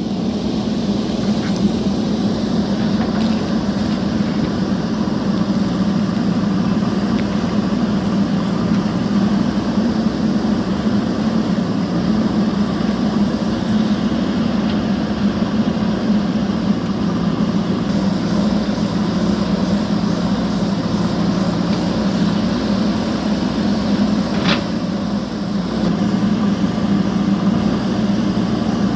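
JCB backhoe loader's diesel engine running steadily under work, with one brief sharp high sound about three quarters of the way through.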